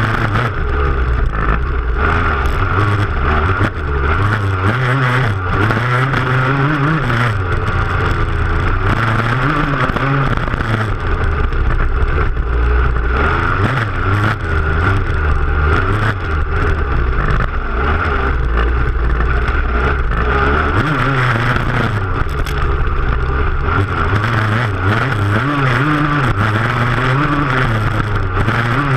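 Motocross bike engine at full race pace, revving up and falling back again and again. Heard close up from the rear fender, over the noise of the rough ride.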